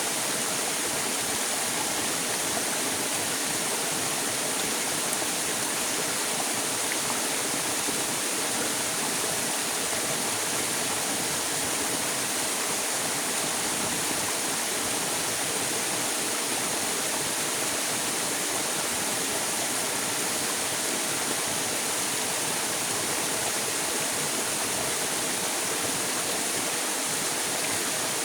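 River water flowing steadily, an even rushing wash with no breaks or changes.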